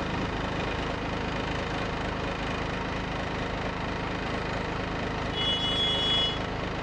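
Truck engine running at low speed, heard from inside the cab as a steady drone with road noise. A brief high-pitched tone sounds for about a second around five and a half seconds in.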